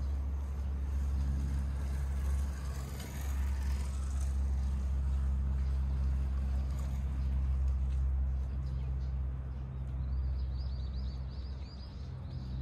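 Steady low hum of distant city traffic, with a brief swell about three seconds in. Near the end a small bird gives a quick run of high chirps.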